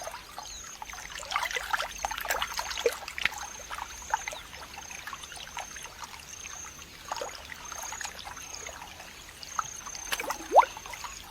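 Shallow pool water trickling, with scattered small drips, plops and short rising gurgles, and one louder plop about ten and a half seconds in. A faint high chirp repeats about twice a second.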